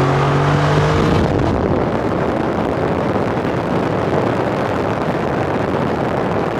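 Car engine at full throttle with its pitch rising, whose note stops about a second in, followed by a loud, steady rush of wind and road noise from the car at speed.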